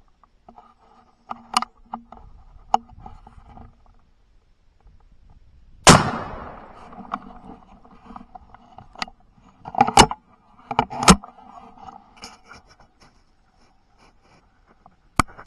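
A single shot from a .410 shotgun loaded with TSS, fired at a wild turkey about six seconds in: one loud sharp crack with a long fading tail. A few smaller sharp knocks follow a few seconds later.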